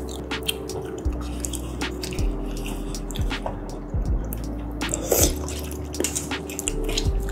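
Wet chewing, lip smacks and mouth clicks of someone eating close to the microphone, scattered short ticks throughout, with one louder cluster around five seconds in. Under them runs soft background music of held notes and a low bass that change about once a second.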